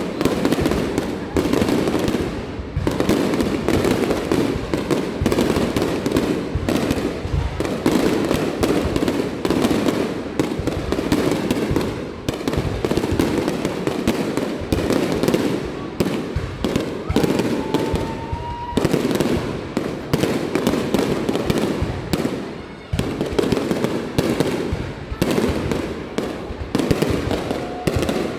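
Fireworks display: a dense, continuous barrage of bangs and crackles, with a short rising whistle about two-thirds of the way through.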